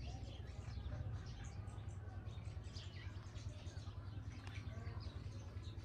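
Faint outdoor ambience: scattered small bird chirps over a steady low rumble.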